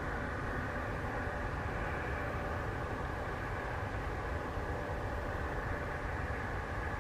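Airbus A380's four jet engines at climb thrust during departure, heard from the ground as a steady jet noise with a few faint steady tones in it.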